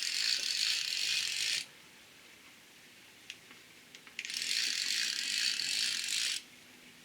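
Jigsaw cutting wood in two short runs, each lasting under two and a half seconds, with a hissing rasp of the blade.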